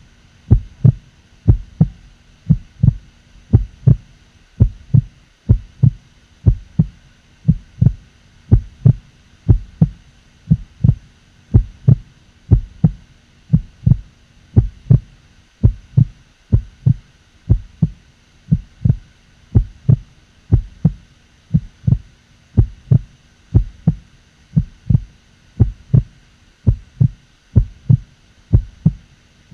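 A steady rhythm of low thumps, about two a second, over a faint constant hum.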